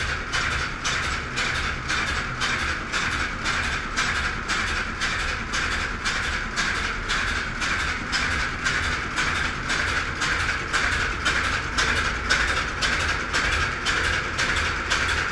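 Tugboat's Atlas-Imperial diesel main engine running, heard close up in the engine room: a steady, loud mechanical beat of about three knocks a second.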